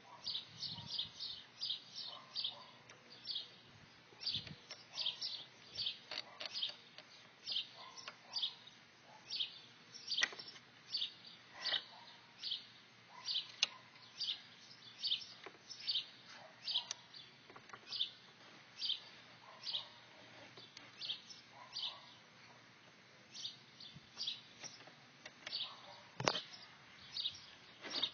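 A bird chirping over and over, short high chirps about two or three a second. A few metal knocks come from the bench vise being worked and taken off the table, the loudest near the end.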